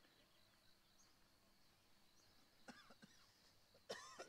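Near silence: faint outdoor ambience with a steady high hiss, a few faint chirps, and a short call about four seconds in.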